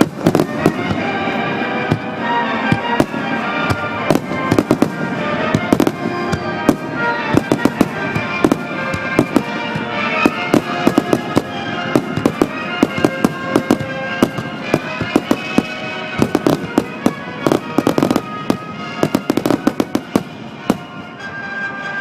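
Fireworks bursting in rapid, irregular volleys of sharp bangs over music playing on loudspeakers. The bangs are distorted by a compact digital camera's microphone.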